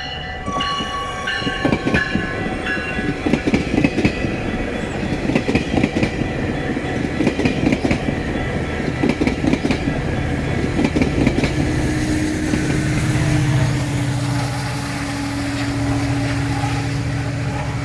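GO Transit commuter train of bilevel coaches passing close by, its wheels clattering rapidly over the rail joints. About twelve seconds in the clatter gives way to a steady low drone with a held tone as the MP40PH diesel locomotive pushing at the rear goes by.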